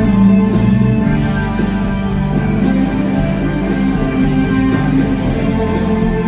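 Live rock band playing loud, with an electric guitar ringing out over sustained chords.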